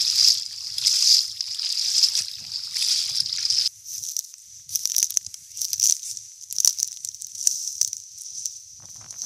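Water sloshing and splashing as someone wades through shallow water. About four seconds in, it cuts to a Siberian husky moving and nosing through dry grass, with scattered crackles and rustles.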